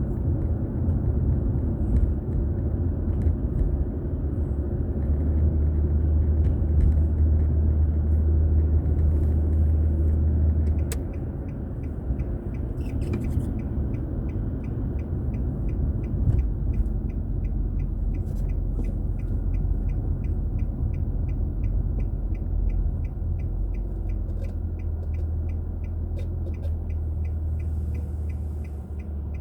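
Car road and engine rumble heard inside the cabin. About 11 seconds in the rumble eases and a turn-signal indicator starts ticking steadily and evenly.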